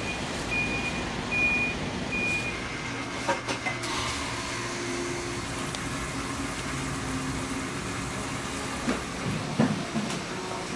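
Four short, high electronic beeps in a row, about half a second apart, followed by a steady background hum with a few light clicks and a sharper knock near the end.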